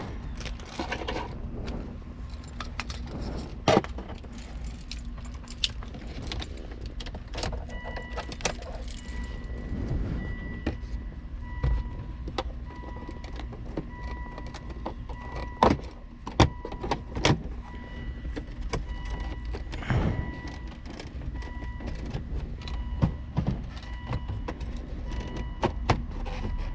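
Scattered clicks, taps and rattles of screwdrivers and plastic trim as the gear-shifter console surround is worked loose and pried at its tabs, over a steady low hum. From about a third of the way in, a faint repeating beep sounds on and off.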